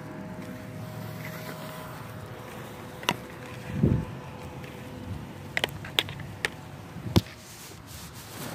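Phone handling noise: rubbing on the microphone with a low thump about four seconds in and a handful of sharp clicks and knocks, as the phone is swung about and covered.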